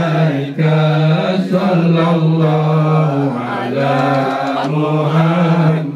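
Chanting in a man's pitch range, with long held notes joined by short gliding turns and brief breaks for breath.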